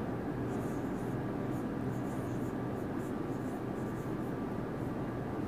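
Marker pen scratching across a whiteboard in a series of short strokes as a word is written, over steady background noise.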